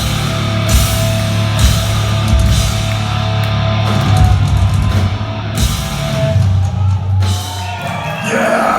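Heavy metal band playing live, with distorted electric guitars and a drum kit. The music drops away about seven seconds in and the crowd starts to cheer and shout near the end.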